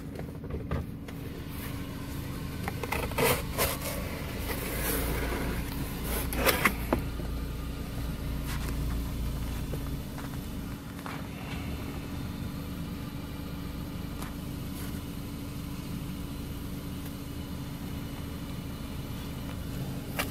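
Steady low hum of a car's running engine heard inside the cabin. A few cardboard scrapes and clicks come a few seconds in as a pizza box lid is opened.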